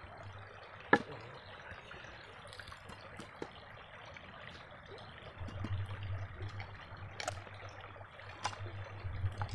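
River water running steadily, with one sharp click about a second in and a few lighter ticks later; a low rumble joins from about halfway through.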